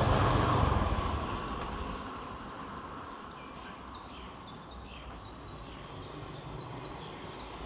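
A car drives past close by, its engine and tyre noise fading away over the first two seconds, leaving quiet street ambience.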